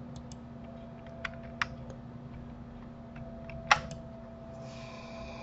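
Scattered light clicks of a computer keyboard and mouse, a few taps with one louder click nearly four seconds in, over a faint steady hum.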